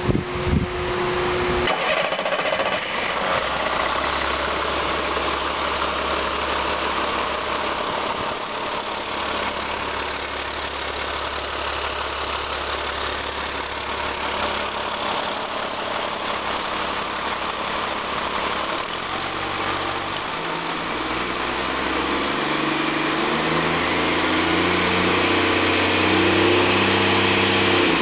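2008 Caterpillar C7 ACERT inline-six turbo diesel running steadily, with a few knocks in the first second or two. From about two-thirds of the way in, its speed is raised in several steps, running faster and a little louder near the end.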